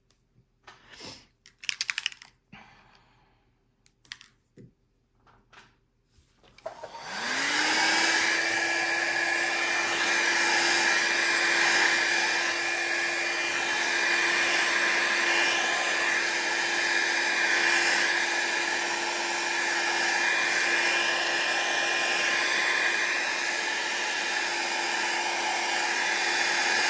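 A few soft clicks and handling noises, then about seven seconds in a Revlon 500-watt styling-brush hair dryer switches on. Its motor whine rises quickly to a steady pitch and it blows steadily over wet alcohol ink.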